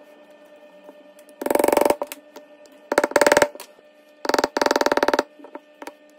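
Steel pin punch struck with a mallet, driving a pin into a Glock polymer frame: a few short bursts of rapid rattling taps, about a second apart. The pin is going in harder than expected.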